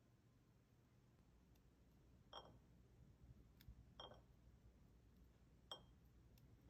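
Near silence with three faint, light clinks, each ringing briefly, spaced about a second and a half apart.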